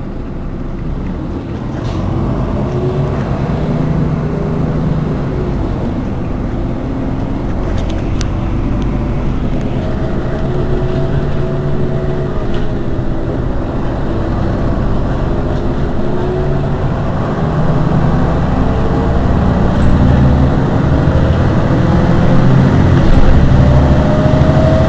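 Iveco Urbanway 18 articulated city bus idling at a stop, heard from behind: a steady engine rumble with a whine that wavers up and down in pitch, growing slightly louder toward the end.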